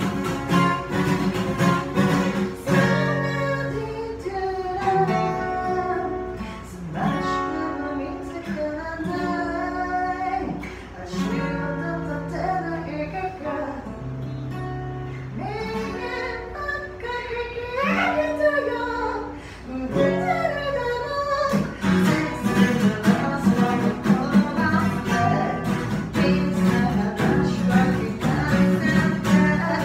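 A small band playing a song: acoustic guitar with bass guitar, and a woman singing. The middle is sparser, with held chords and long bass notes, and busier strumming comes back about 22 seconds in.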